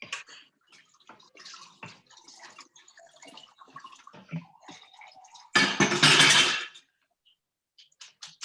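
Kitchen handling noises of light clicks and scraping, then a loud rush of running water lasting just over a second, about two-thirds of the way in.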